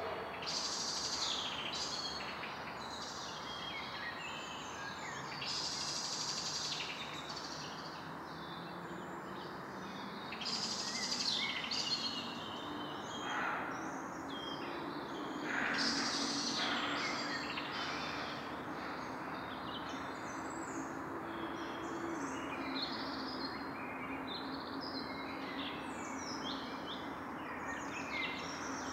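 Evening forest ambience: several birds chirping and calling at irregular intervals over a steady background hiss. A faint low hum runs underneath from about a third of the way in.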